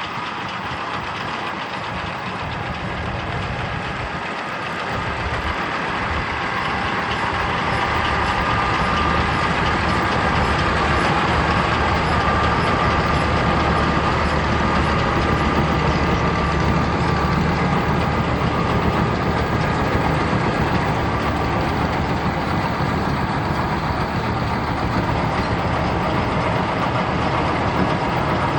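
Tractor running a Krone Bellima round baler: steady engine and machinery noise that grows louder from about six seconds in and then holds steady.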